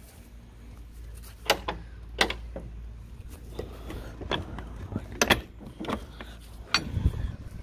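Handling noise from a phone carried while walking: a steady low rumble with about six sharp clicks or knocks scattered through it.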